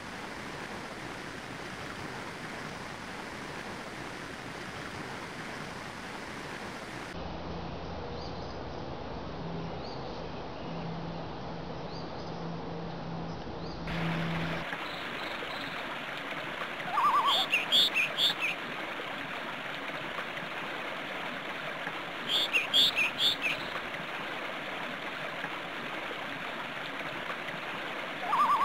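Steady rush of flowing water, joined in the second half by birds chirping: two short bursts of rapid high notes a few seconds apart, plus a lower call twice.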